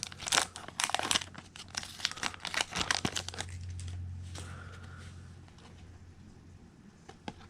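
A Topps Chrome baseball card pack's foil wrapper being torn open and crinkled. The crackling is dense for about three and a half seconds, then dies down to faint handling, with a couple of light clicks near the end.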